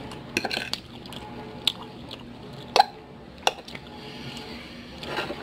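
Eating sounds from a plate of noodle stir-fry: a handful of short sharp clicks from a fork against the plate and wet mouth sounds of chewing.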